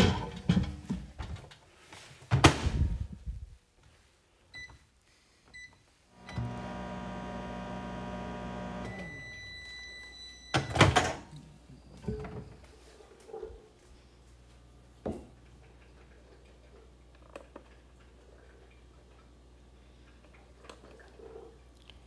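Microwave oven running a short drying cycle on a green wood bowl blank. The door clunks and the wooden bowl knocks on the turntable, two short keypad beeps sound, and the oven hums steadily for about three seconds. A beep follows and the door clunks open about eleven seconds in, with a few light knocks as the bowl is handled before quiet room tone.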